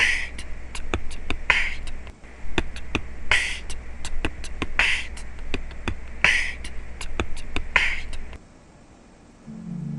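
Swiftlet calls: a rasping chirp about every one and a half seconds with rapid sharp clicks between, over a low steady hum. They stop about eight seconds in, and soft instrumental music begins near the end.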